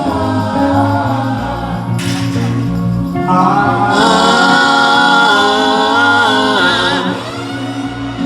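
Music with singing: a melodic vocal line over held bass notes, with the singing growing louder about three seconds in.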